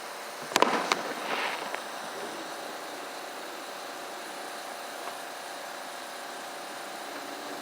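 A firework bang about half a second in, followed by a brief crackle, then a steady mechanical hum with no further bursts.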